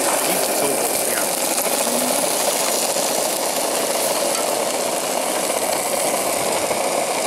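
Meat, tomatoes and peppers frying in oil in a pan on a gas canister camping stove: a steady sizzle over the burner's even rush, with a spoon stirring through the food.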